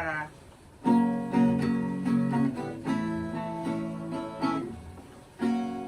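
Guitar being strummed: casual chord noodling, with a new set of strums starting just under a second in and another about five and a half seconds in.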